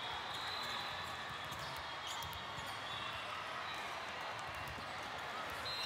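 Steady din of a large hall with several volleyball matches in play: a constant murmur with scattered sharp knocks of volleyballs being hit and bouncing.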